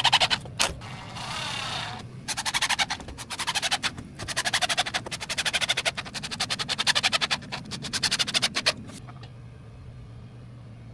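Power driver driving screws in several bursts of rapid clicking, one long burst in the middle lasting several seconds, with a short whirring spell between bursts; it stops a couple of seconds before the end.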